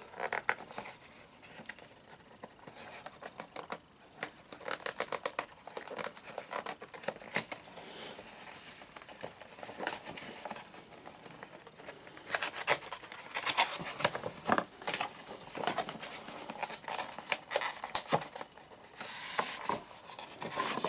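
A model locomotive's box and packaging being opened and handled: irregular rustling and crinkling with many small clicks and scrapes as the model is worked free. The handling grows busier past the middle and again near the end.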